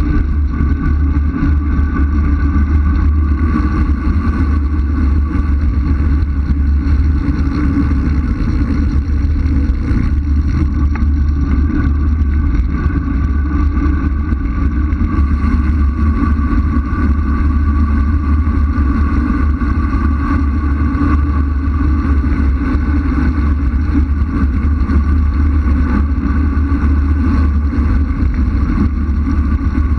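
Wind rushing over a bike-mounted camera on a fast road-bike descent: a loud, steady, unbroken rumble.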